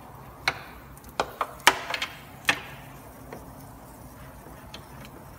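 A quick run of sharp clicks and knocks, about seven within two seconds, then only a few faint ticks.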